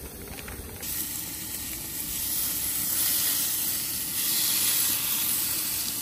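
Steady sizzling hiss of hot dogs cooking, growing louder and brighter about a second in.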